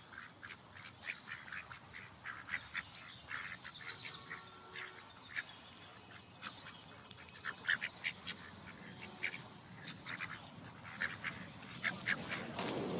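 Birds calling in the open: a scattering of short, sharp calls at irregular intervals over faint background hiss.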